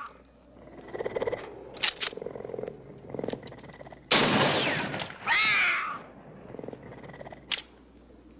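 Big cat growling in short low rumbles, then snarling loudly about four seconds in, the snarl ending in a screeching cry that rises and falls. A few short sharp cracks sound among the growls.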